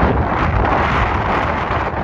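Strong wind blowing across the microphone: a gusting rumble, with a hiss that swells and fades around the middle.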